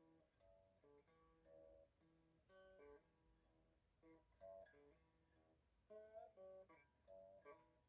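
Stratocaster electric guitar with its pickups removed, played unplugged: quiet blues noodling of plucked single notes and double stops, with string bends and louder picking near the end.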